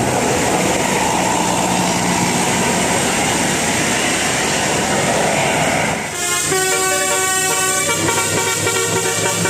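A loud steady rumble and hiss, then about six seconds in a bus's Basuri telolet horn plays a quick tune of changing notes.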